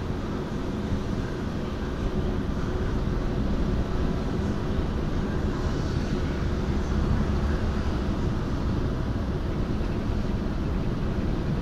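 Steady low drone of the oil tanker Kairyu Maru's diesel engine as the ship passes slowly by, with a constant hum over a deep rumble.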